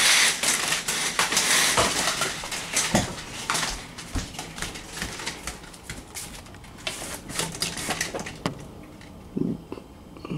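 Vertical window blind slats clattering and rustling as they are pushed aside, a dense run of clicks and rattles that is loudest in the first few seconds and then thins out to scattered clicks.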